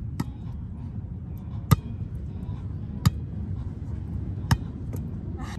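A volleyball being hit back and forth by hand: sharp slaps about every second and a half, four in a row and a lighter one near the end, over a steady low rumble.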